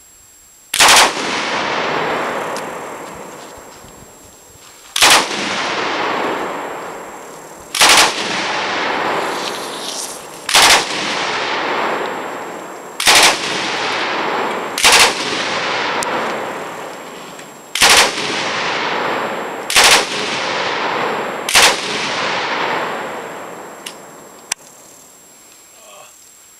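Belt-fed machine gun firing nine short bursts a few seconds apart, each followed by a long echo dying away.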